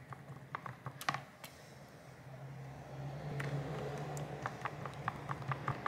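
Precision screwdriver driving small Phillips screws into a phone's metal midframe: faint scattered clicks and ticks of the bit on the screws, with a quick run of light ticks near the end. A low steady hum rises under it from about halfway.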